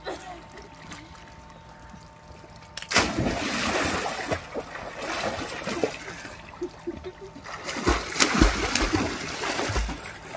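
Water splashing in a swimming pool as a child swims: quiet at first, then a sudden splash about three seconds in that churns on for a couple of seconds, and heavier splashing again near the end.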